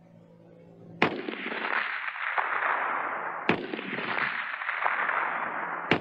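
AK-47 rifle firing 7.62×39mm rounds one at a time: three shots about two and a half seconds apart, each followed by a long echo that fades out.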